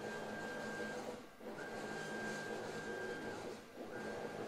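Stepper motor on a CNC plasma table gantry driving the gantry along its belt with a steady, high whine, stopping briefly twice. This is the repaired motor with its new shaft working again.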